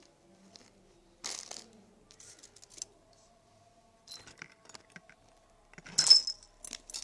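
Metal jewelry and beads clinking and rattling as a heap of pieces is rummaged through by hand, in several short bursts, the loudest about six seconds in.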